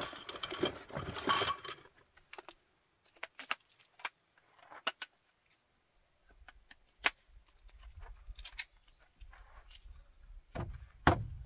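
Rustling of a gear bag, then scattered clicks and knocks of a folding camp cot's metal frame being handled and fitted in a car's cargo area, with a louder dull thump near the end.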